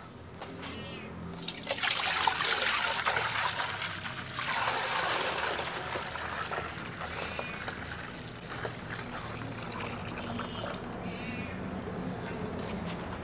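Sugarcane juice pouring into a container as it fills. It starts about a second and a half in, is strongest for the next few seconds, then settles into a quieter, steady trickle.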